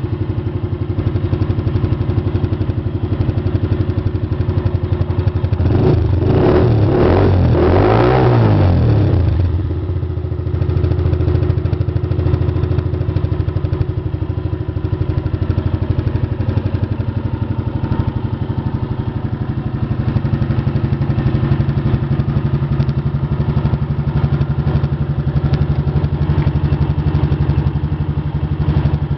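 Honda CG 125 Fan's single-cylinder four-stroke engine idling steadily, revved up briefly about six seconds in and falling back to idle after about three seconds.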